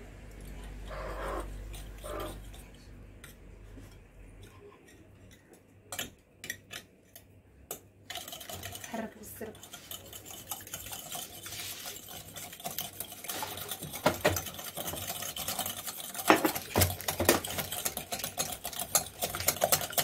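A wire hand whisk beating eggs and sugar in a glass bowl: a few separate clicks, then from about eight seconds in a rapid, continuous clinking and scraping of the wire against the glass that grows louder toward the end. A low hum fades out in the first few seconds.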